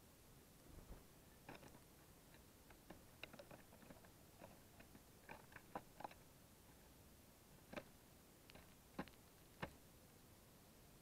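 Small birds (house sparrows and a European greenfinch) pecking at and cracking sunflower seeds in a wicker feeder: scattered, irregular sharp clicks and taps over near silence, a few of them much louder than the rest.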